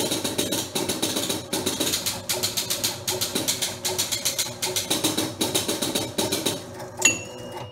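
Gottlieb Card Whiz electromechanical pinball machine resetting at game start: score reels and relays stepping in a rapid, even clicking. Near the end a single chime ding rings on, the sign of something locked on in the circuit.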